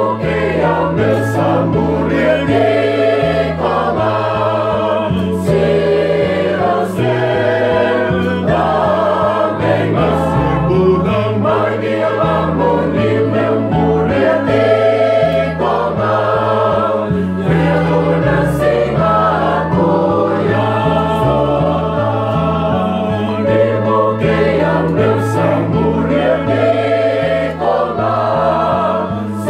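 Choir of children and teenagers singing together, many voices holding and moving between sung notes without a break.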